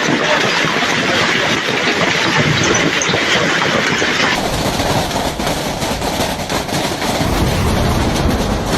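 Hailstones pelting down hard: a dense, continuous rattle of countless small impacts. The recording changes abruptly about four seconds in to another hail clip with more low rumble.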